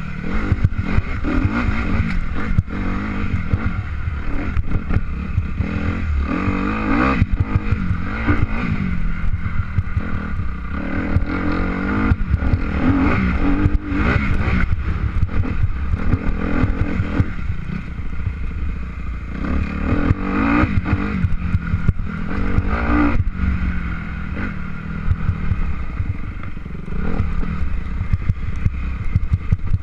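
A motor vehicle running continuously, loud and uneven, with rattling throughout.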